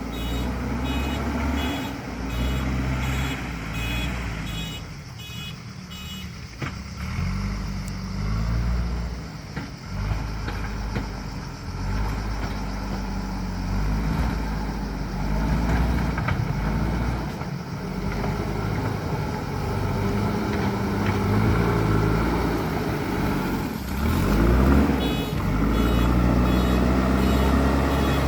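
Diesel engine of a JCB 3DX Super backhoe loader working under varying load, with its reversing alarm beeping over it at the start and again near the end.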